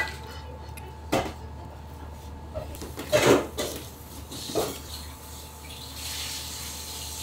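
Metal utensils clinking and scraping against a stainless steel mixing bowl and cake frame as a spatula works the batter: several separate short clanks over the first five seconds.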